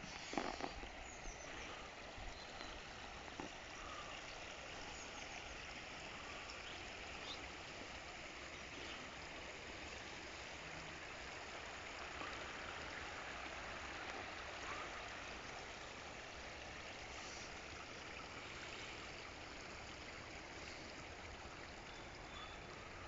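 Steady rush of running water at a swimming pool, an even hiss with no pauses. A couple of small knocks sound near the start.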